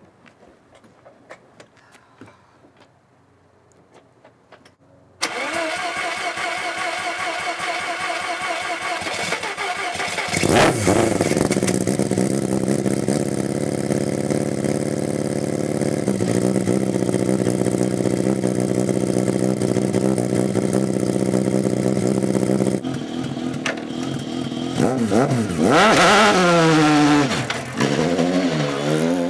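Pro Formula Mazda's two-rotor 13B Renesis rotary engine being started. About five seconds in the starter cranks it for roughly five seconds; the engine then catches and runs at a steady idle. Near the end it is revved up and down several times.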